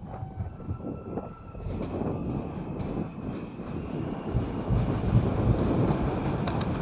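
New York City J subway train pulling out of the station: a rumble of wheels and cars that grows louder from about a second and a half in, with faint high whining tones in the first half.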